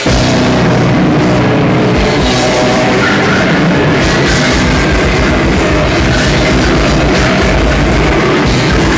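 A metal band playing live and loud: distorted electric guitars, bass and drums, dense and continuous as the song gets going.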